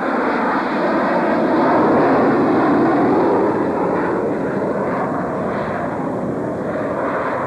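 F-16 Fighting Falcon single-engine jet passing and climbing away, a loud, rushing engine noise that peaks about two seconds in and then eases off.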